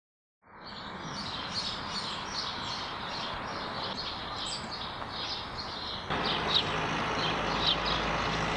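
Small birds chirping repeatedly over steady outdoor background noise. About six seconds in, the background changes abruptly and a low steady hum joins it.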